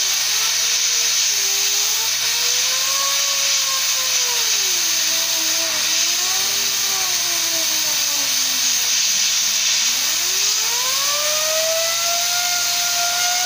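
Turbocharger turbine wheel spun on a jig by compressed air while a rag loaded with metal polish is held against it to polish it: a steady air hiss under a thin whine that wanders down and up in pitch, sinking lowest about ten seconds in and then climbing again.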